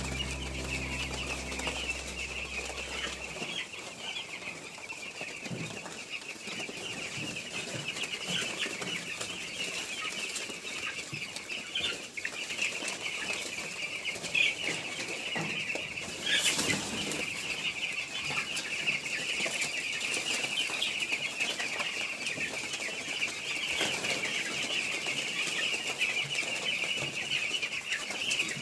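A flock of young chicks peeping continuously in a dense, high chorus, with a sharp knock about sixteen seconds in.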